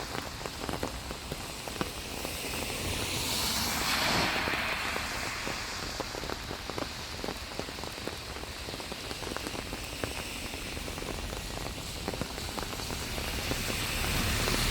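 Rain falling, with many separate drops hitting close by. A broad hiss swells about four seconds in and again near the end.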